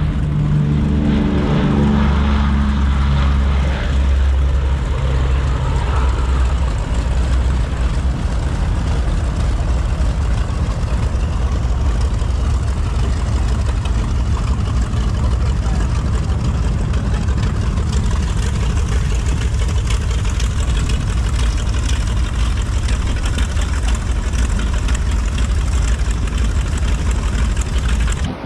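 The Boeing B-17 Flying Fortress's Wright R-1820 Cyclone radial engines running in a loud, steady drone, with a rushing wind-like noise over it. A deeper pitched engine tone stands out during the first few seconds, then evens out.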